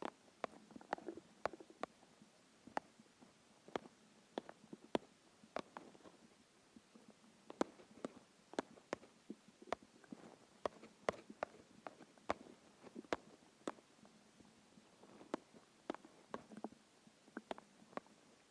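Empty, hungry stomach gurgling: a quick, irregular run of small pops and clicks, several a second, over a faint low rumble that swells a few times.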